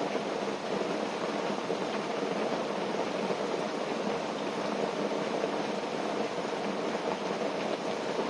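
Steady rain falling on a tent: an even, unbroken hiss of rainfall.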